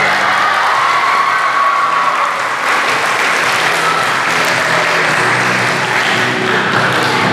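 Audience applauding, over background music.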